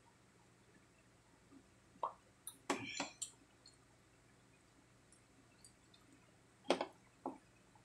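Drinking glasses being set down on a plastic tray: a few short knocks and clicks, one cluster about two to three seconds in and another near the end.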